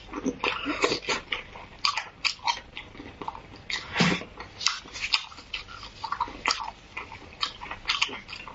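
Close-miked wet eating sounds: lips smacking and slurping as beef bone marrow is sucked out of the bone and chewed. One louder suck comes about four seconds in.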